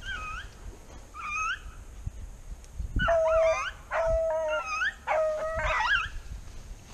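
Rabbit hounds giving tongue while running a rabbit: two short, high, rising yelps, then from about three seconds in three loud drawn-out bays about a second apart.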